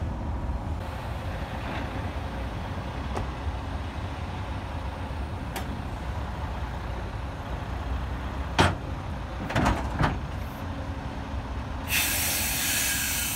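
Freightliner Cascadia's Detroit DD15 diesel idling steadily, with a few sharp metallic knocks a little past halfway. Near the end a loud hiss of compressed air lasts about a second and a half as the lowboy trailer's deck comes down.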